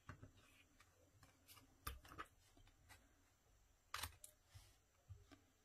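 Faint snips of small scissors cutting through design paper: a few scattered short clicks, the sharpest about two seconds in and again about four seconds in.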